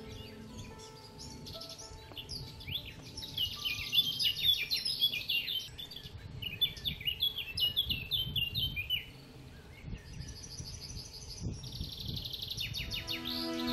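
Songbirds singing, with bursts of fast, high chirps and trills, busiest in the middle. Soft background music sits under them at the start and swells in near the end.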